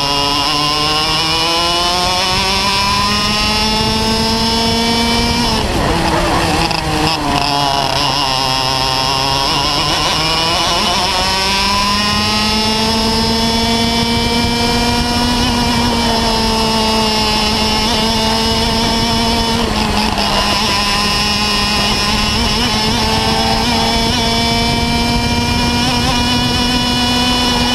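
Parilla two-stroke kart engine at racing speed, recorded on board. The revs climb along the straights and drop sharply under braking for corners about six seconds in, again around ten seconds, and briefly around twenty seconds.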